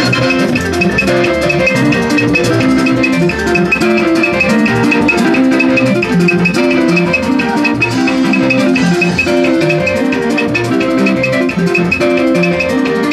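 Loud music with repeated plucked, ringing notes over rattles and a steady beat, playing without a break.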